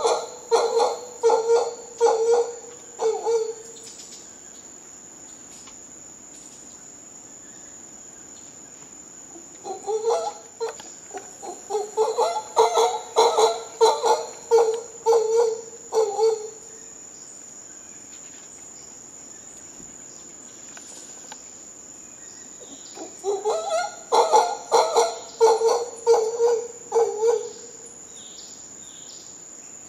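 Mantled howler monkeys calling in three bouts of rhythmic, pulsed grunting howls, a few pulses a second, each bout a few seconds long with quiet gaps between. A steady high insect drone runs underneath.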